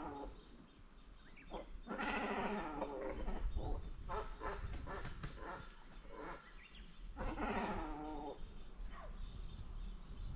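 Two drawn-out, quavering animal calls, one about two seconds in and another around seven seconds in, with faint scattered ticks between them.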